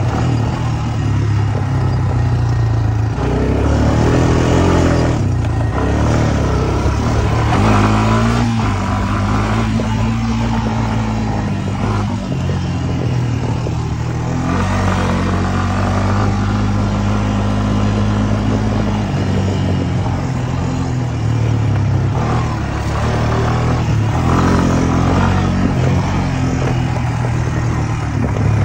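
Honda Recon utility ATV's single-cylinder four-stroke engine running under a rider, its pitch rising and falling several times as the throttle is opened and let off.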